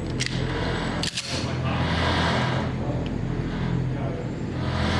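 A 2011-pattern pistol, a BUL Armory SAS II Tac Pro 5", being made ready: a sharp metallic click as the magazine is seated, then a quick clatter of clicks about a second in as the slide is worked. A steady low hum runs underneath.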